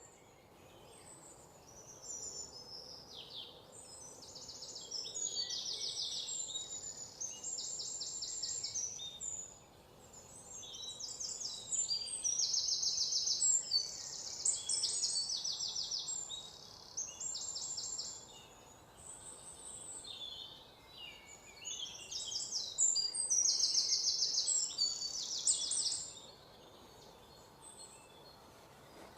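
Birds singing: a run of high, fast trilled phrases, some sweeping downward, repeated with short pauses over faint background hiss, dying away about three seconds before the end.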